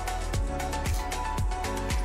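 Background music with a steady beat: a deep thump about twice a second over a heavy bass line.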